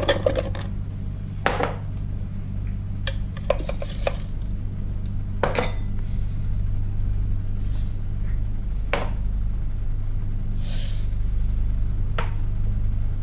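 Small glass prep bowls and a spoon clinking and tapping against a plastic food processor bowl as dry ingredients are tipped and scraped in: scattered clinks a second or two apart, with a brief scrape near the end, over a steady low hum.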